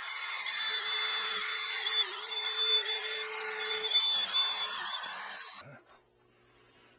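Small high-speed power tool with a steady whine, scouring rust off the garbage disposal's metal plate, stopping about six seconds in.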